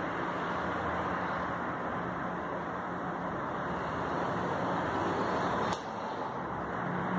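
Steady rushing background noise, with one sharp click a little under six seconds in.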